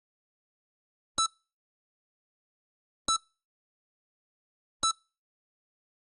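Heart monitor (EKG) beeping: three short, high beeps about two seconds apart, with silence in between, each beep marking one heartbeat in a slow, steady pulse.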